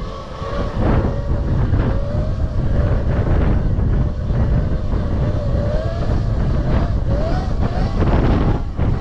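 Electric dirt bike motor whining while riding, its pitch wavering and slowly climbing with speed before dropping away near the end. Heavy low rumble of wind on the microphone runs under it.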